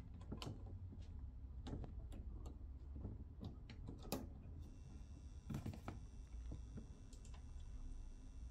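Computer keyboard and mouse clicks, light and irregular, over a low steady hum. About halfway through, a faint high whine comes in and holds.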